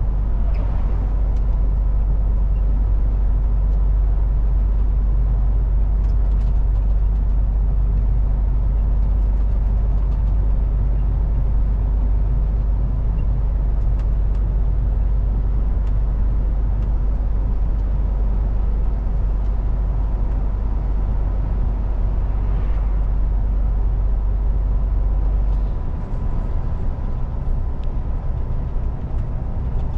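A 2018 MAN TGX semi truck's diesel engine drones steadily under way, along with tyre and road noise. About four seconds before the end, the deep drone turns uneven and a little quieter.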